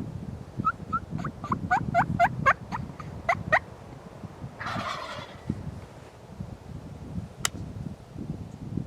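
Merriam's wild turkey tom gobbling: a quick rattle of about a dozen falling notes lasting about three seconds. A short rustle follows a little later, then a single sharp click.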